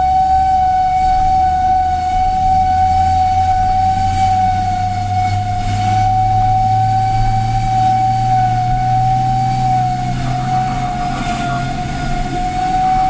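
Fire truck siren held on one steady high tone, dipping slightly in pitch near the end, with the truck's engine running underneath, heard from inside the cab while responding to a call.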